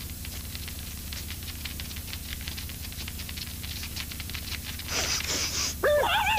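Cartoon sound effects: a faint, rapid patter of soft taps over a low hum, a brief hissing whoosh about five seconds in, then a short wavering animal cry near the end.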